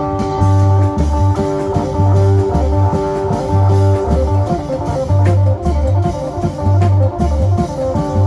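Isan phin, a plucked lute, playing a lively lam phloen melody over held drone notes, with a low bass figure that repeats about every second and a third.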